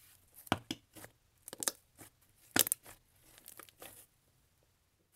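Grey cloud-creme-over-butter slime ('mallow butter parfait') being pulled, stretched and pressed flat by hand, tearing and crackling as its airy texture breaks. A run of short, irregular crackles, the loudest about a second and a half and two and a half seconds in, stopping about four seconds in.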